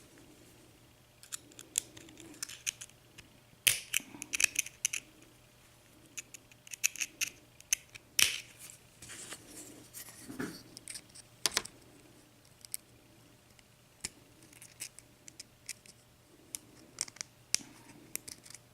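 Irregular metallic clicks and scrapes of a small tool prying and working at a stubborn retaining clip on a Euro cylinder lock.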